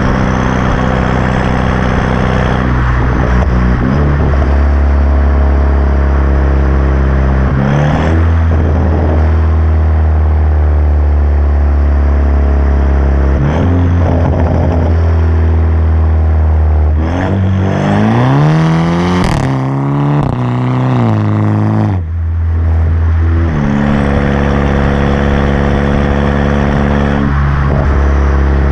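Exhaust of a BMW 328i's turbocharged four-cylinder through an M Performance catback with the muffler and resonator deleted and an aftermarket downpipe, idling with its pitch stepping up and down a few times. About two-thirds through, the engine is revved once, rising and then falling back to idle.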